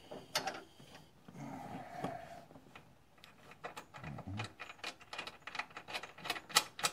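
Hand tools worked on a Sears lawn tractor's drive-belt and pulley hardware: a run of sharp metallic clicks and clinks, sparse at first and coming several a second from about halfway in.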